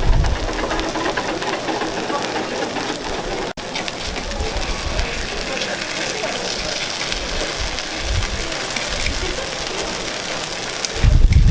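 Takoyaki batter and octopus sizzling in a takoyaki griddle: a steady crackling hiss like rain, broken briefly about three and a half seconds in, with a low bump near the end.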